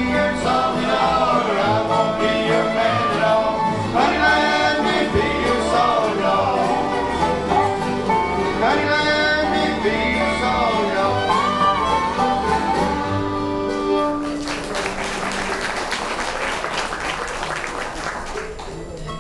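Bluegrass band singing and playing acoustic string instruments, with a male lead voice and guitars. The song ends about three-quarters of the way through, and applause follows.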